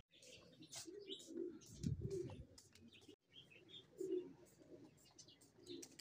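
Domestic pigeons cooing softly in several short phrases, with a few faint higher chirps.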